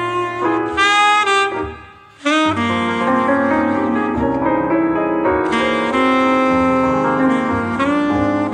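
Saxophone-led jazz with piano playing through Onkyo D-SX7 bookshelf speakers driven by an FR-7GX CD/MD tuner amplifier. The music drops away briefly about two seconds in, then comes back in.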